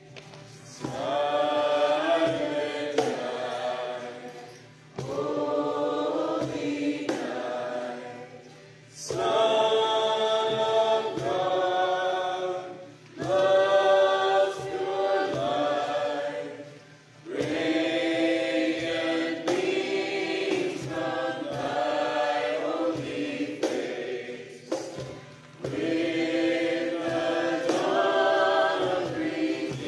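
A group of voices singing a worship song with musical accompaniment, line by line, each phrase lasting a few seconds with short breaks between them.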